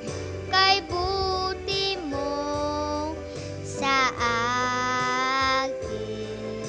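A young girl singing a Tagalog worship song over instrumental backing music, with a few short phrases and then a long held note about four seconds in. The backing carries on alone near the end.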